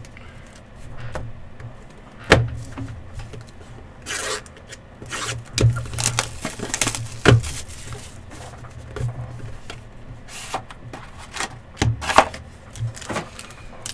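Trading cards and their packaging being handled on a table: rubbing and scraping, with several sharp clicks and taps spread through.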